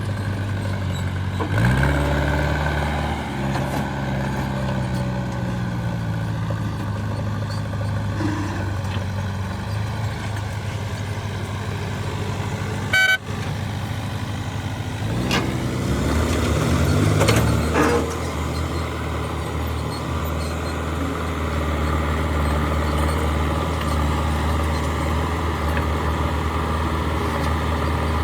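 Heavy diesel machinery engines running steadily, with the engine note changing as they work and a rise-and-fall of revs around the middle, plus one short high beep partway through.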